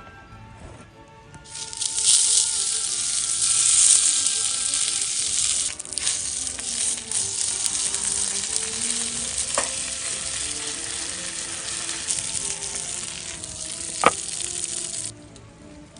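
Gyoza sizzling hard in a hot iron pan, a dense frying hiss that starts about a second and a half in and cuts off suddenly near the end. Two sharp metallic clicks come partway through and near the end.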